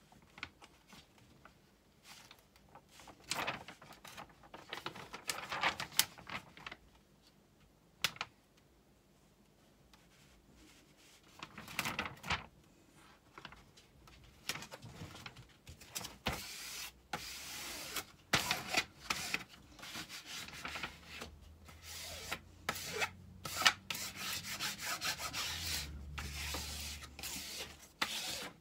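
Hands rubbing and smoothing the plastic protective film over a diamond-painting canvas to press out trapped air: irregular rustling, rubbing strokes that come thicker and faster in the second half, with a few sharp ticks.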